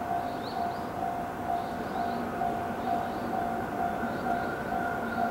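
Japanese railway level-crossing warning bell ringing in a steady repeating electronic ding, about two a second, warning of an approaching train.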